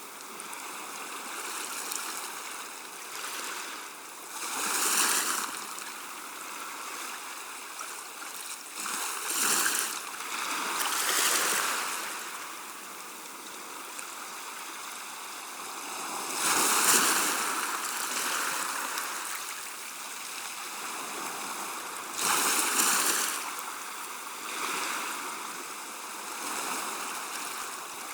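Gentle sea waves washing on a shore: a steady hissing wash that swells into a louder wave every few seconds, about five times, with the strongest near the middle.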